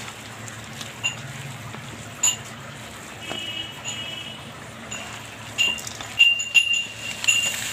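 Steel mixing bowl clinking and ringing briefly as a hand kneads chicken momo filling in it. There are single clinks about one and two seconds in, then a quicker run of them near the end.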